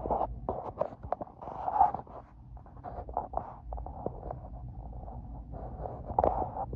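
Rustling and scraping of a pleated cellular window shade being handled close to the microphone, with irregular rubbing and small knocks.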